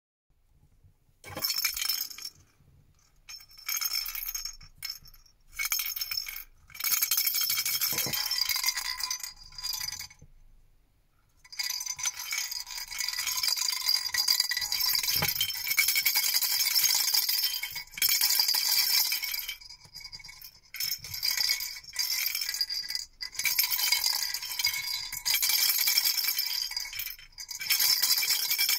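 Two plastic baby rattles shaken by hand, giving a bright, jingly rattle. It comes in short bursts with pauses at first, then goes on almost without a break from a little over a third of the way in.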